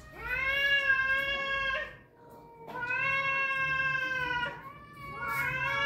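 Cats yowling at each other in a fighting standoff: three long, drawn-out yowls of about two seconds each, with short pauses between them, the last still going at the end.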